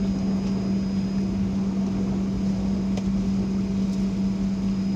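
Steady hum and air rush inside the cabin of a parked Boeing 757, with a strong low hum that holds one pitch. A couple of faint clicks sound about three and four seconds in.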